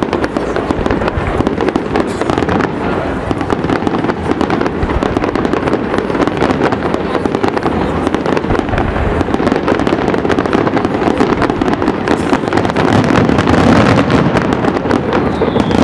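Aerial fireworks display firing a dense, continuous barrage of bangs and crackles.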